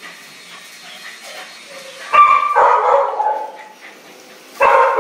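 A dog barking at a cat, in two loud bursts: one about two seconds in that lasts about a second, and another starting near the end.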